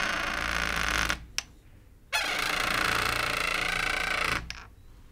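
Door creaking on a grinding hinge: two long, rough creaks with a short pause between, the first ending about a second in and the second lasting a little over two seconds.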